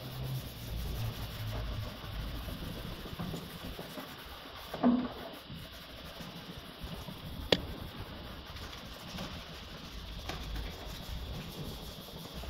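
A cloth rubbing and wiping over car body panels, with a brief louder sound about five seconds in and a sharp click about two and a half seconds later.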